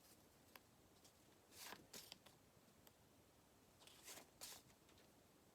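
Near silence: room tone with a few faint, short rustles.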